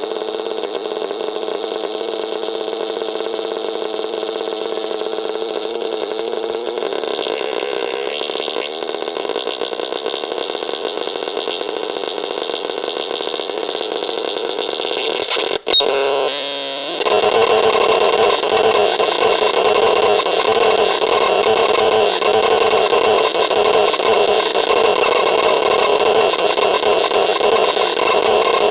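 Abstract electronic noise from the Vapesonic RX 21: a steady, hissing drone carrying several fixed tones, which changes texture about seven seconds in. After a sharp click about sixteen seconds in, it switches to a louder, denser drone.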